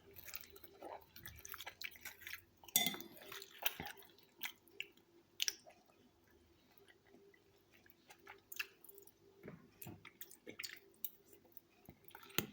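Close-up chewing of a fresh salad of fruit, beans and cheese in yogurt dressing: irregular wet mouth sounds and short sharp clicks.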